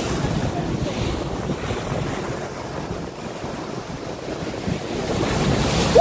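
Rough surf breaking and washing over shoreline rocks, with wind buffeting the microphone. The wash eases around the middle and swells again near the end.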